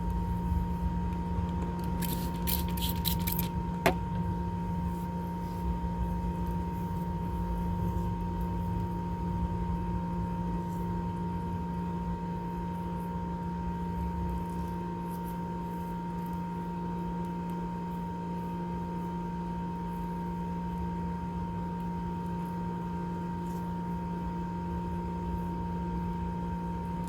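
A steady hum holding two constant tones, one low and one higher, over a low rumble. About two seconds in there is a short burst of crackling rustles, then a single sharp click.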